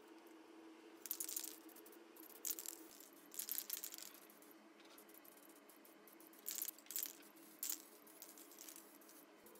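Aerosol can of high-temperature spray paint being shaken, the mixing ball rattling inside in about six short bursts.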